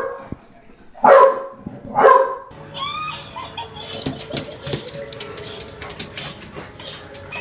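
A bulldog barks twice, loudly, about a second apart. After that comes a quieter stretch with a steady hum and many small clicks.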